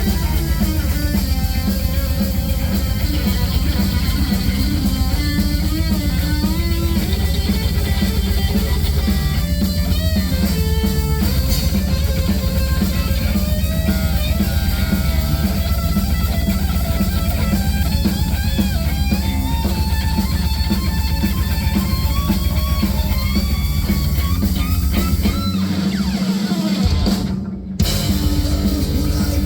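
Heavy metal band playing live and loud: distorted electric guitars over drums and bass. Near the end the low end drops out and the band stops for a moment before coming back in.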